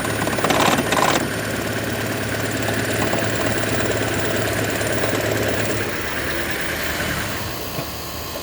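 2012 Toyota Prius petrol engine running with a heavy, fast, even rattle over a steady low hum, a fault whose cause the owner does not know. The rattle eases off near the end as the engine is shut down.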